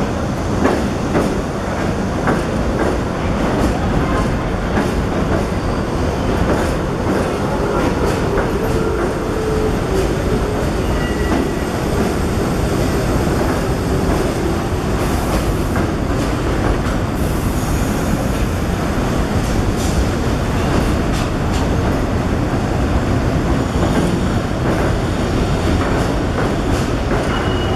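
New York City Subway trains running on curving elevated track: a steady rumble of steel wheels on rail with repeated clicks over the rail joints, and a faint wheel squeal on the curves around the middle.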